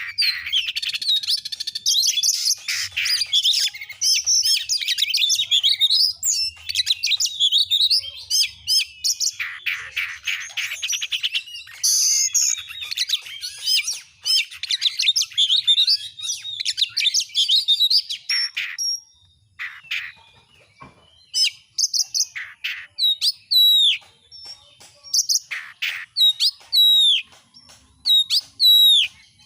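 Oriental magpie-robin (kacer) singing: a fast, varied stream of chirps, trills and whistles. About two-thirds of the way through it thins to spaced, repeated downward-sliding whistles about once a second.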